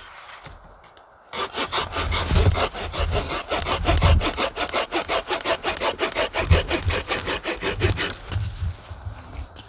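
Red-handled curved-blade hand saw cutting through a thin log with quick, even back-and-forth strokes. The sawing starts about a second in and stops shortly before the end.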